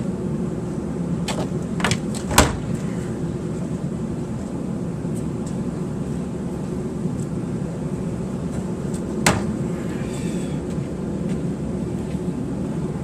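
Items from a backpack being handled and set down: a few sharp knocks and clatters over a steady low hum, the loudest about two and a half seconds in and another about nine seconds in.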